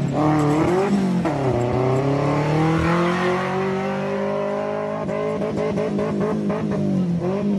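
Off-road 4x4 engine revving under load as it drives past on a dirt track. The pitch drops about a second in, then climbs and holds high, and a quick run of clicks and knocks comes about two thirds of the way through.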